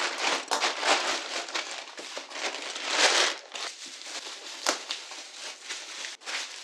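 Bubble-wrap plastic packaging crinkling and rustling as hands pull a box out of it, with many small crackles, loudest about halfway through.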